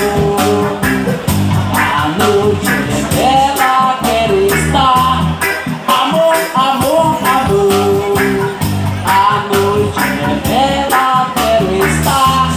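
Roots reggae band playing a song: a bass line and drums under a regular rhythm of short guitar chops, with a melody line gliding over the top.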